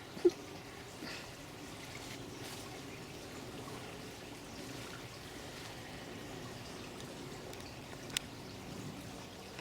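Water trickling and flowing steadily, with a sharp click just after the start and another near the end.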